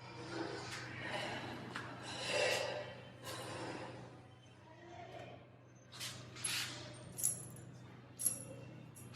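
A person breathing heavily in and out, then a few short, sharp clicks in the second half.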